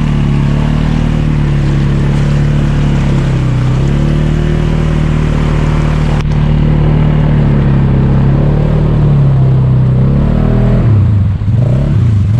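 Off-road vehicle engine revving hard under load while pushing through a deep mud hole. The pitch holds fairly steady, then swings quickly up and down near the end as the throttle is worked.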